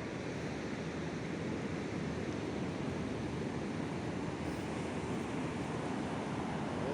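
Sea surf washing steadily onto the beach, a continuous rush of breaking waves.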